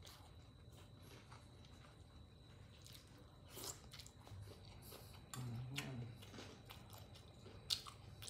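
A person chewing a spoonful of shredded green mango salad, with a few soft clicks and a short hummed 'mm' about five and a half seconds in.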